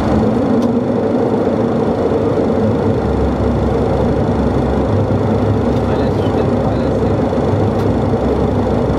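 Boeing 737 cabin noise in flight: a steady drone of the jet engines and airflow with a humming tone, and a deeper rumble that comes in about three seconds in.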